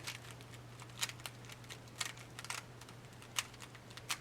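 Plastic Rubik's cube being turned by hand, its layers clicking in short irregular snaps, over a steady low hum.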